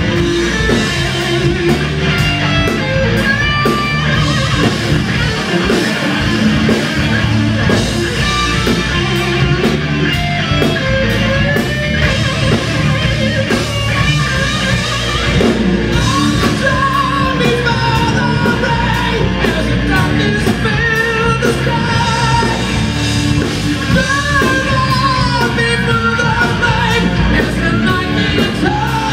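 Live rock band playing: electric guitars and drums, with a lead vocalist singing over them.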